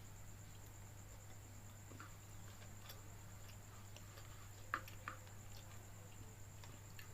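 Quiet eating sounds: faint scattered mouth clicks and small ticks, with two sharper clicks a little before five seconds in, over a steady electrical hum and a high whine.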